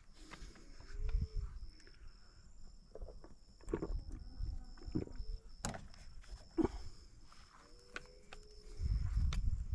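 Outdoor field ambience: an insect trilling steadily in high, even pulses, low rumbles of wind on the microphone, and a few sharp clicks or pops, the strongest just past the middle.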